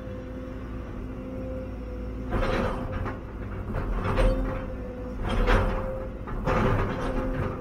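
Cat 316EL excavator running under load, heard from inside the cab: a steady diesel rumble with a constant whine over it, and about five rushing surges of noise from about two seconds in as the machine works.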